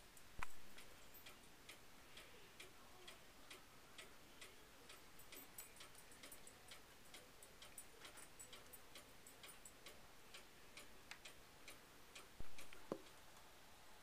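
Faint, quick, irregular ticking, a few small clicks a second, with two louder dull knocks, one about half a second in and one near the end.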